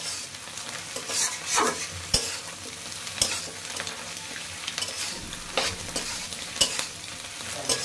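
Vegetables, scrambled egg and freshly added tomato sizzling in a hot wide metal pan while a metal spatula stirs and tosses them, with several sharp scrapes and knocks of the spatula against the pan at uneven intervals.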